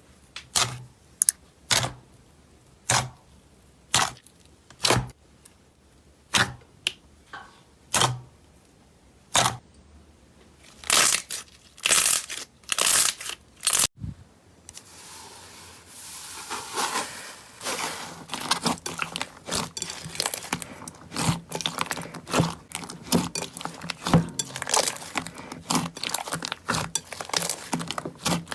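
Slime being pressed and stretched by hand, making sharp crackling pops. The pops come about once a second at first, then turn into a dense, continuous crackling and squishing in the second half.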